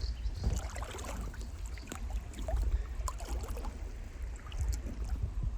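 Footsteps sloshing and splashing through shallow creek water, with scattered small knocks of stones, over a steady low rumble.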